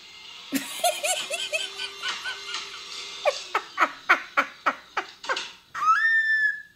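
A woman laughing hard: quick bursts of laughter, then a steady run of about three ha's a second, ending in one long high-pitched squeal.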